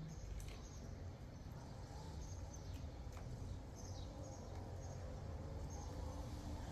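A bird chirping outdoors: short, high notes in pairs, repeating every second or two over a steady low rumble.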